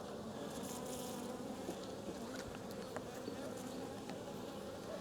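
Honey bees buzzing around an open hive, a steady hum, with a few faint clicks along the way.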